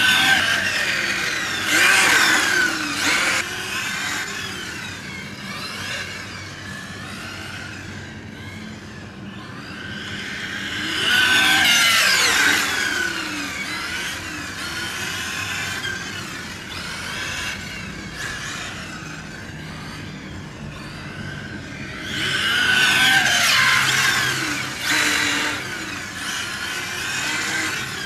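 Electric HOBAO Hyper VT 1/8 rally RC car with a XERUN 2200kv brushless motor on 6S, whining at high speed and passing close three times. Its pitch drops sharply each time it goes by, and it fades between passes.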